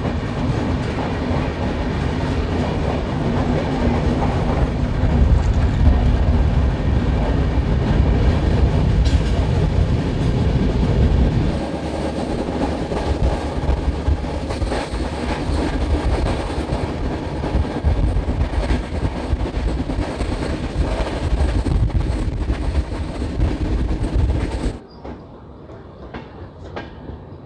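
Express passenger train running on the line, with a steady rumble of wheels on rails. Near the end it cuts abruptly to a much quieter background.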